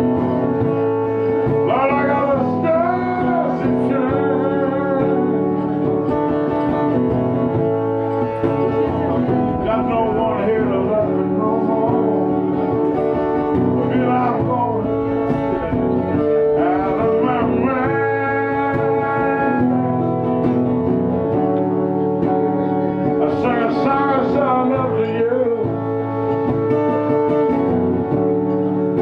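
Live music: guitar playing under a lead melody that bends and wavers in pitch.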